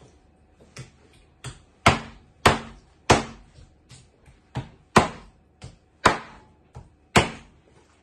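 Kitchen knife chopping raw chicken thighs on a wooden cutting board: about a dozen sharp knocks of the blade striking the board, at an uneven pace of roughly two a second.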